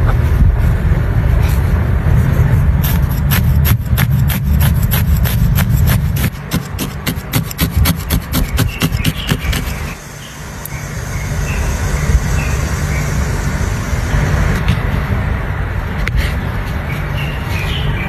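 A felting needle stabbed rapidly and repeatedly into wool roving on a bristle brush mat: a quick run of sharp pokes, about five or six a second, that stops about halfway through. Wool is rubbed and handled throughout.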